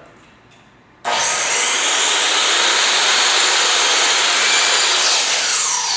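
Ridgid 10-inch miter saw starting up about a second in with a rising whine, its blade cutting through a board at full speed. Near the end the trigger is released and the motor spins down in a falling whine.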